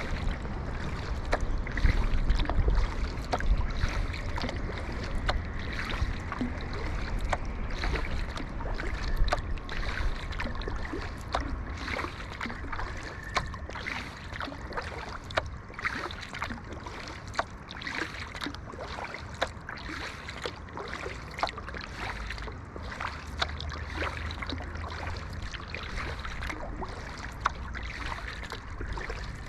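Kayak paddle strokes: the blades dip and splash in the water at a fairly regular pace, over a steady wash of moving water, with low wind rumble on the microphone swelling near the start and again late on.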